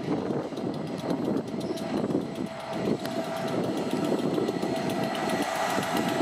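Class 67 diesel locomotive's EMD two-stroke V12 engine running as it hauls coaches slowly in, with irregular clicks and knocks from the wheels crossing pointwork.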